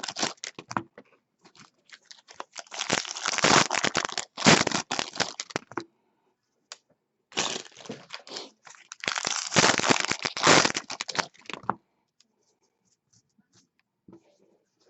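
Baseball card pack wrappers being torn open and crumpled, in two long spells of crinkling and tearing with shorter rustles between.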